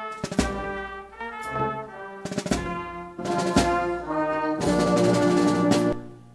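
Brass band playing with drums: sustained brass notes punctuated by drum strikes, then a loud held chord about five seconds in that breaks off just before the end.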